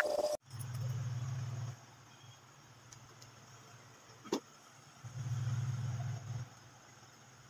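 Two spells of low electrical buzzing, each a little over a second long, from a transformer-type soldering gun switched on while a wire is soldered to the subwoofer's terminal tab. A single sharp tap of metal comes between them.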